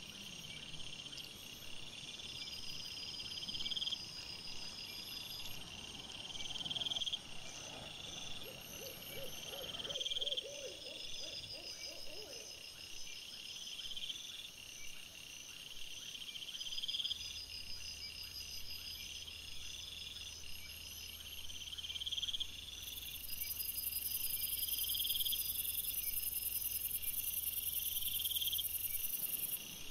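Night insects chirping in a steady repeating chorus, a rising trill about every two seconds over a run of fast high pulses. A steady high hiss and a low hum join about 23 seconds in and stop shortly before the end.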